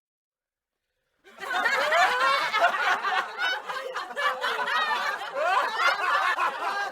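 Silence, then about a second in a group of people starts laughing together, hearty laughter from many overlapping voices.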